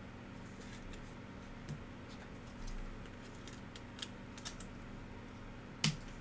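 Trading cards and a clear plastic card holder being handled: a scatter of light plastic clicks and ticks as a card is slid into the holder and the next card is handled, with a sharper click near the end, over a faint steady hum.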